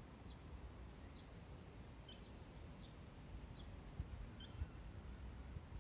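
Juvenile common moorhens peeping: faint, thin, high calls, short notes sliding downward, scattered about once a second over a low background rumble.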